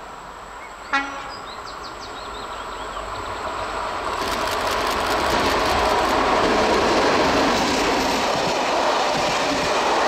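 Class 751 diesel locomotive gives one short horn toot about a second in. Then its engine and wheels grow steadily louder as it approaches and passes, and the coaches roll by with wheels clicking over the rail joints.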